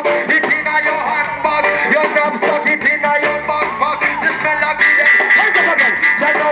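Live band playing with vocals, heard from within the audience, with little bass. A steady high note is held from about five seconds in.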